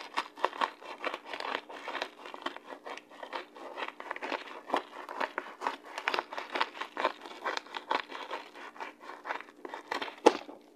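Small scissors snipping through a kraft-paper mailer, the paper rustling and crackling as it is cut and handled, in an irregular run of short sharp snips with a louder one near the end.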